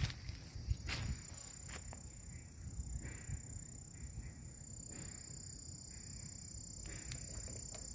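Insects singing: a steady high-pitched tone that starts about a second in, over a constant high hiss. Wind or handling rumble on the microphone sits underneath.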